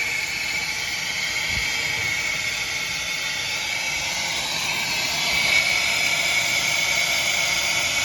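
A steady, loud hiss of rushing air or gas, its tone shifting slightly about five seconds in.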